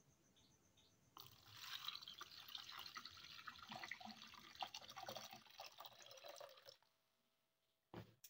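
Water poured from a bowl into a plastic mesh strainer, splashing and draining through the holes with soaked soybean skins. It starts about a second in and tapers off after about five seconds. A short knock comes near the end.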